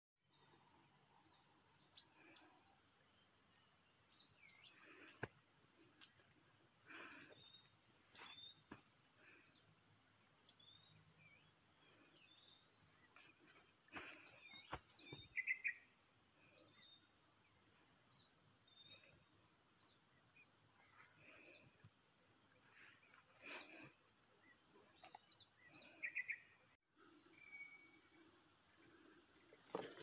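A steady, high-pitched chorus of insects, cricket- or cicada-like, with scattered short bird chirps over it and a few faint clicks. The chorus drops out for a moment near the end, then resumes.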